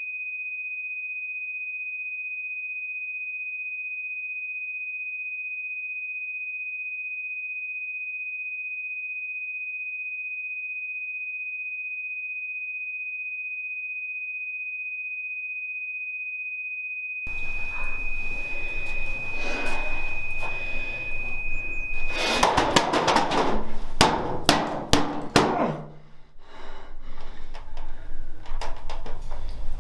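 A steady, high-pitched pure electronic tone held unbroken for about twenty-two seconds and then cut off. From about seventeen seconds in, a jumble of knocks, clatter and rustling joins it, with a run of sharp knocks just after the tone stops.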